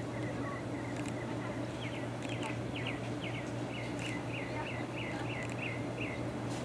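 A bird calling a quick run of short repeated chirps, about three or four a second, over a steady low hum.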